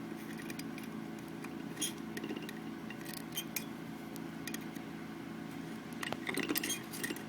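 Small clicks and scrapes of fingers working a coiled piece of stranded copper wire down into a hole of a lamp socket, scattered through, with a quick run of clicks about six seconds in.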